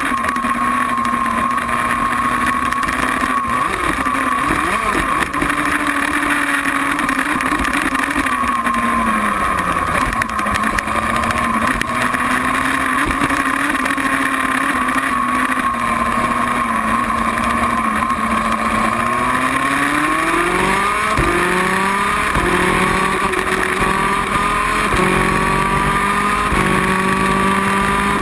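Two-stroke 250cc superkart engine heard onboard at racing speed, running high and steady, dipping in pitch briefly about a third of the way in and recovering. In the last third it climbs through the gears, the pitch rising and dropping abruptly at each upshift, about every one to two seconds.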